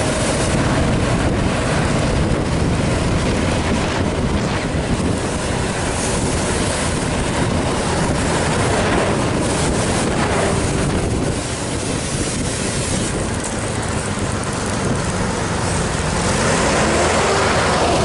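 Steady road noise from a moving vehicle: engine and tyre rumble with wind buffeting the microphone, easing slightly for a few seconds past the middle.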